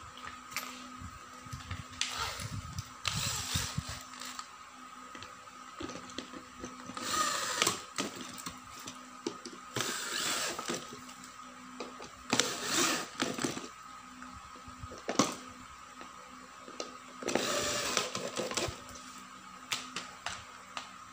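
Corded electric drill driving screws through an office chair's metal mechanism plate into the seat base, in about five short runs of about a second each. Between the runs come clicks and knocks of the drill and screws being handled.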